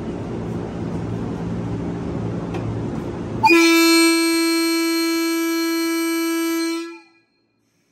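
JR 185-series electric train's horn sounding one long, steady departure blast. It starts suddenly over the steady hum of the standing train and stops abruptly.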